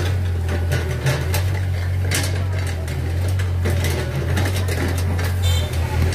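Truck engine idling: a steady low hum, with scattered short clicks and rattles over it.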